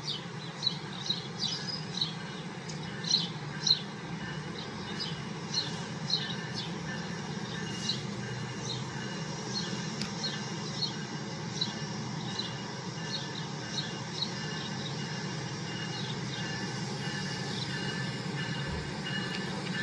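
Small birds chirping in short, irregular calls over a steady low hum, busiest in the first few seconds; near the end a faint whine builds as a train approaches.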